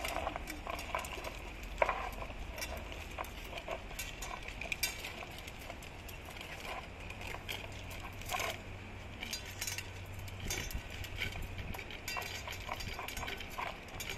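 Dogs eating from food bowls: irregular wet chewing and lapping clicks, with the occasional clink of a bowl on the paving. A steady low hum runs underneath.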